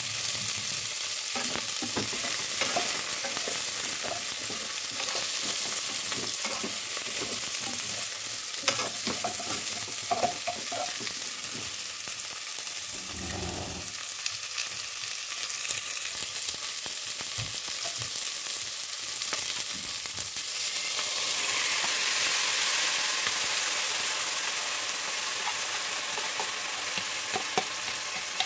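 Chicken feet sautéing with onion and ginger in a metal pot: a steady sizzle, with the clicks and scrapes of stirring against the pot. The sizzle grows louder about two-thirds of the way through.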